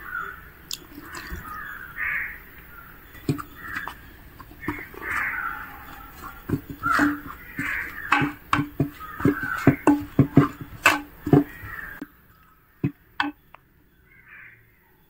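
Crows cawing again and again, over the knocks and scrapes of a coconut-shell ladle working a dry cornflour mix in a clay pot. The cawing stops about twelve seconds in, leaving only a few knocks.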